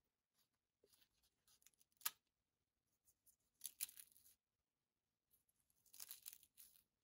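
Crisp deep-fried goosh-e-feel pastry being broken apart by hand, crackling and snapping: one sharp snap about two seconds in, then two longer bursts of crackling.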